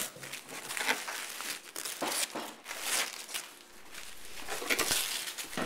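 Paper gift wrap being torn open and crumpled by a child's hands, in irregular rustling, ripping bursts.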